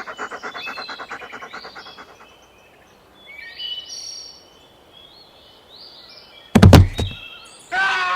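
Rapid, even panting fading out over the first two seconds, then birds chirping, then a loud double thump near the end.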